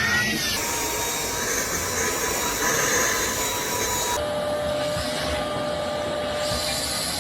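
Vacuum cleaner running: a steady rush of air under a motor whine. The whine drops to a lower pitch about four seconds in.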